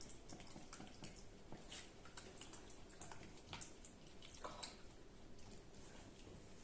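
Faint, irregular soft squelches and light clicks of a utensil working cream cheese and melted butter together in a bowl, the mixture still lumpy and curdled-looking.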